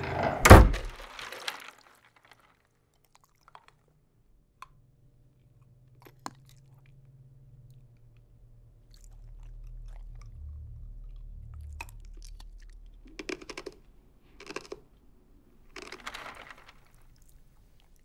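A single loud, heavy thud about half a second in, ringing out briefly. Then a faint low hum with a few small clicks, and three short, softer noises near the end.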